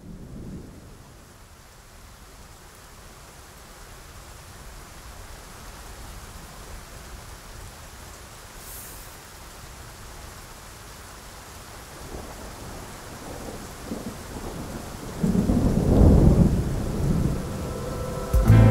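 Steady rain falling, with thunder rolling in: low rumbles about twelve seconds in, then a long, loud roll of thunder a few seconds before the end.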